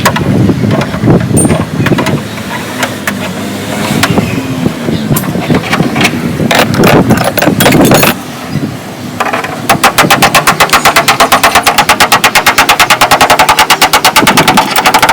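Sheet-metal dent repair on a car body: irregular knocks and clatter, then from about nine seconds in a fast, even run of hammer blows on the metal, about seven a second.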